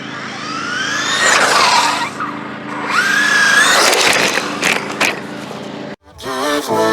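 Traxxas Rustler VXL RC truck on Duratrax Speedhawk street tires, driven hard on pavement. A high whine rises and falls twice as it accelerates and slides.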